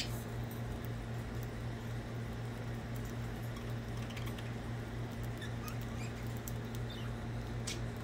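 Budgerigars pecking and cracking seed at a feeding bowl: scattered faint clicks and a few soft chirps, with one sharper click near the end. Under it runs a steady low hum.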